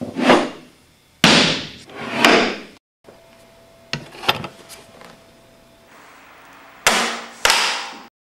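Mallet blows on the plunger of a Primatech H330 manual flooring nailer, driving nails into tongue-and-groove hardwood flooring: three heavy strikes about a second apart, then a few lighter clicks, then two more strikes near the end.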